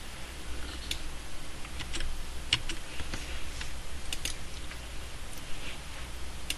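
Scattered sharp clicks of a computer keyboard and mouse in use, irregular and a second or so apart, over a steady low hum.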